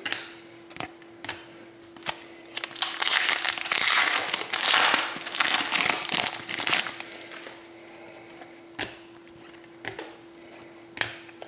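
Plastic card packaging crinkling and rustling as trading cards are handled, loudest in a stretch of about four seconds in the middle. A few light taps and clicks come before and after, over a faint steady hum.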